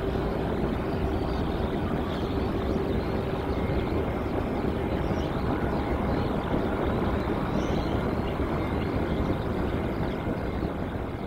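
Large jet airliner landing: steady engine rumble with a constant whine above it, fading away near the end.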